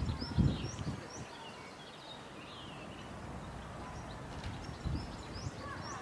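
Small songbirds chirping and twittering, a scatter of short high chirps and rising notes, over steady outdoor background noise. A few dull low thumps come at the start and about five seconds in.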